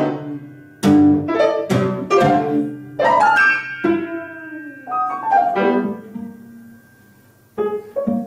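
Cello played with forceful, separate accented bow strokes, with piano, in a contemporary piece. About four seconds in, a long downward slide in pitch fades away. After a near-pause, sharp accented strokes start again near the end.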